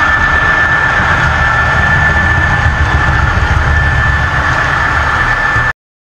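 HO-scale model train running, heard from a camera riding on the train: a steady rumble with a steady high whine over it. It cuts off abruptly near the end.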